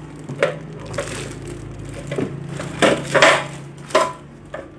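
Clear plastic bag crinkling and rustling as a boxed welding inverter is handled and pulled out of its cardboard carton, in several short bursts, loudest about three seconds in.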